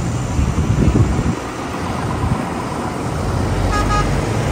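Tractor engines running as illuminated tractors drive past one after another on a rain-soaked road, with a hiss of rain and wet tyres underneath. A vehicle horn gives one short toot about four seconds in.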